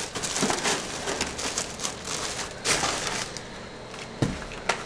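Tissue paper and kraft paper wrap rustling and crinkling as small paperboard soap boxes are pressed and shuffled into place in a shipping box, with a few sharp taps of the boxes near the end.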